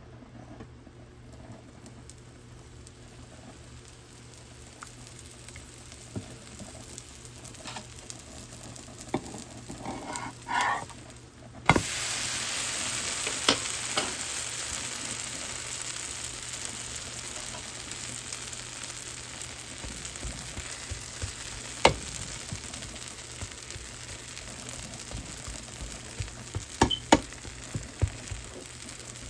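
Wheat dosa frying in a hot pan. A faint sizzle builds slowly, then a loud, steady sizzle starts suddenly about twelve seconds in. A few sharp clicks of a utensil come through over it.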